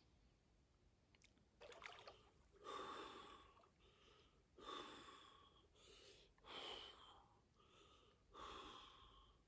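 A man's faint, heavy gasping breaths as he stands chest-deep in a mountain lake: louder breaths roughly every two seconds with weaker ones between.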